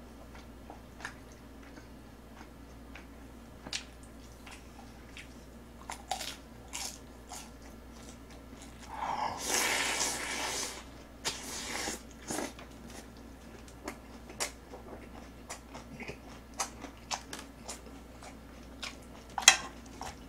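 Close-up eating sounds: chopsticks clicking against the pan and dishes, with chewing. About halfway through comes a long, roughly two-second slurp of Chapagetti, black-bean instant noodles. Near the end there is one sharp clack, the loudest sound.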